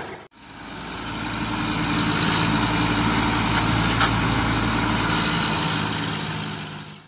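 Steady engine-like running sound accompanying a small DIY model tractor, an even low hum. It fades in just after the start and fades out at the end.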